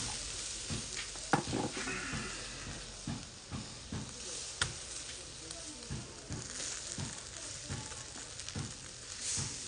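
Skewered chicken wings sizzling over a charcoal shichirin, with scattered taps and clicks as the skewers are handled on the grill rails; two of the clicks are sharp, about a second in and about four and a half seconds in.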